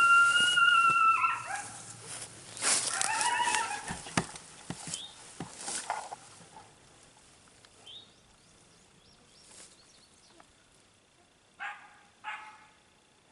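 Coyote vocalizations: a held howl that ends about a second in, a wavering howl a couple of seconds later, then two short yips near the end. These are typical of a coyote duet call used to draw coyotes in.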